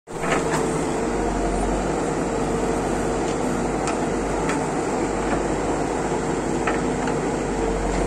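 Escorts backhoe loader's diesel engine running steadily as the backhoe digs, with a steady whine over the engine's rumble. A few short sharp knocks come through as the bucket works the stony soil.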